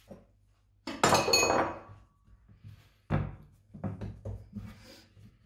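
A kitchen knife is set down on a hard countertop about a second in, a clatter with a brief metallic ring. Then comes a dull thud and several softer knocks as hands press and pat floured dough on a wooden cutting board.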